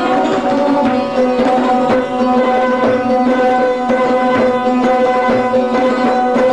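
Hindustani classical music: sarod played with tabla accompaniment over a steady tanpura drone.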